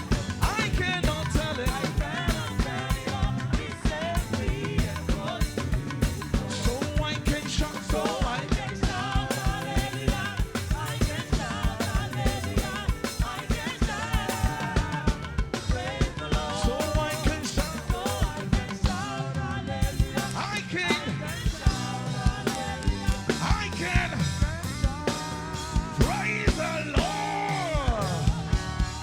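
Live gospel band music: a drum kit keeping a steady, busy beat over bass, with voices singing.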